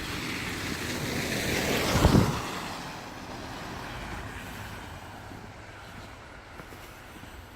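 A vehicle driving past on a snowy street: tyre hiss swells to a peak about two seconds in, with a brief low rumble, then fades away.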